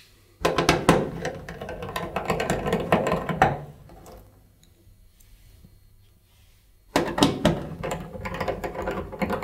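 Screws being undone from a tumble dryer's sheet-metal back panel with a driver. There are two spells of rapid rattling clicks, about three seconds each, with a pause between.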